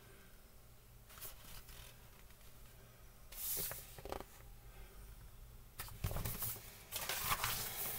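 Paper pages of a picture book rustling as they are handled and turned, a few short soft rustles.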